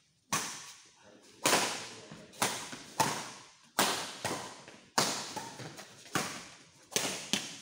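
Badminton rackets striking a shuttlecock in a fast rally: a string of sharp hits about every half second to second, each ringing out in the sports hall's echo.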